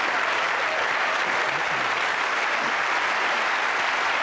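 A studio audience applauding steadily, with some cheering voices mixed in.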